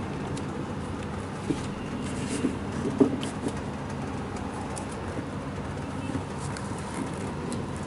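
Steady low background rumble, with a few faint clicks and rustles and a soft knock about three seconds in, as the sneakers and their cardboard boxes are handled.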